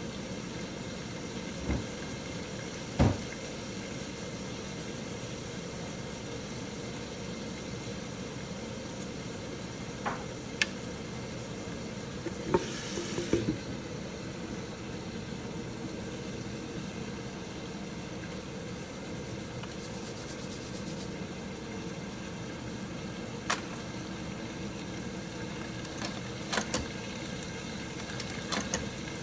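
Bacon frying in a covered wok: a steady sizzling hiss with scattered sharp pops of spitting fat. Near the middle comes a brief scrape and knock as the wooden lid is shifted by hand.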